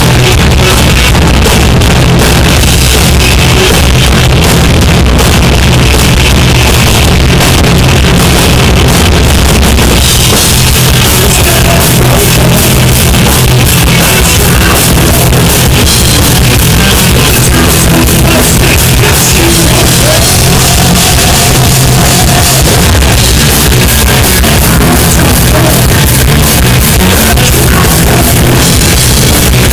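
Heavy metal band playing live: distorted electric guitars over a rock drum kit, recorded very loud and in poor quality. The top end gets brighter and busier about ten seconds in.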